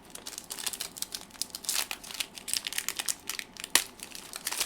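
Crinkling of a foil Pokémon booster pack wrapper being handled, a dense irregular crackle, with one sharp tap about three-quarters of the way through.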